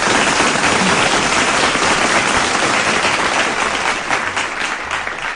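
Applause from many hands clapping together, fading down near the end.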